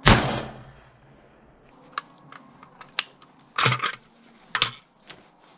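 A single shot from a .223/5.56 WS MCR rifle, ringing out and fading over about half a second. It is followed by a few light metallic clicks and two louder clattering rattles, about three and a half and four and a half seconds in, as the magazine is taken out of the rifle and handled.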